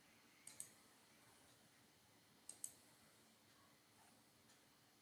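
Faint computer mouse clicks over near silence: two quick double clicks about two seconds apart.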